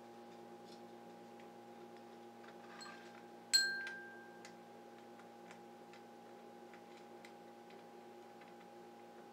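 Light ticks about two a second over a steady electrical hum; about three and a half seconds in, one sharp metallic clink rings briefly as small metal hardware is handled on the printer frame.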